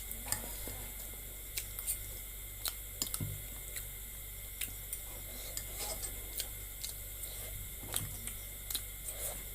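Soft eating sounds of a person eating noodles: scattered light clicks of a utensil against the bowl and quiet mouth noises over a steady low hum.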